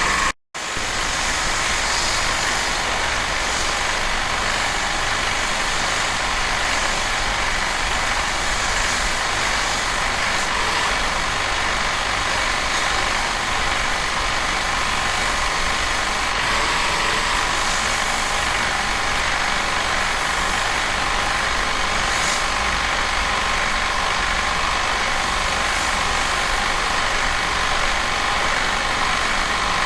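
A high-pressure washer runs steadily, its motor and pump humming under a constant hiss of water spray, as used for cleaning an air conditioner. The sound cuts out for an instant just after the start, then carries on unchanged.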